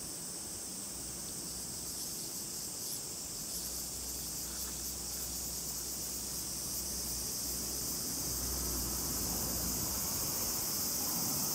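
A steady, high-pitched chorus of insects calling, growing a little louder in the last few seconds.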